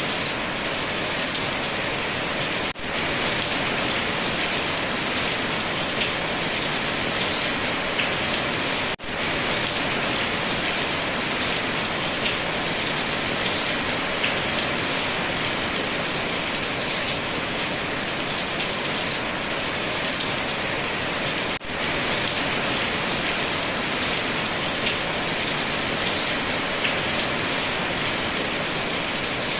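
Steady heavy rain falling on a surface, an even hiss of many drops, which drops out for an instant three times.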